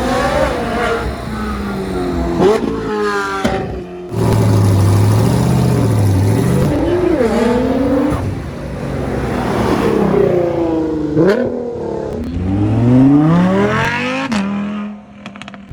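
High-performance car engines revving hard several times, their pitch climbing and dropping back, in a string of short clips that cut abruptly from one engine to the next.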